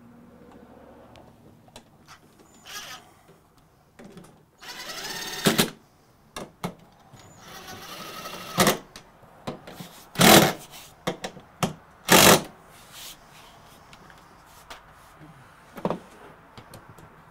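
A cordless drill/driver runs in two short bursts, driving in the screws that hold a scooter seat. Several sharp knocks follow, the loudest near the middle.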